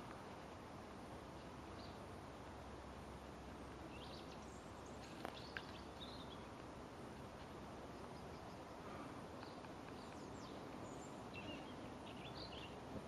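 Faint outdoor background hiss with a few scattered distant bird chirps, and two sharp clicks about five seconds in.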